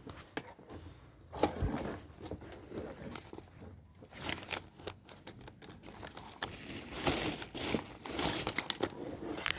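Irregular crinkling, rustling and small clicks of hand-handled parts and wire on a workbench.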